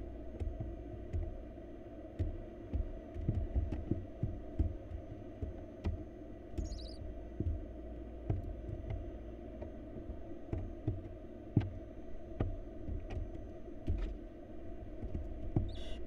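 Irregular low thumps and knocks of barn owl nestlings stepping and pouncing on the floor of a wooden nest box, over a steady low hum. A short high falling note comes about six and a half seconds in.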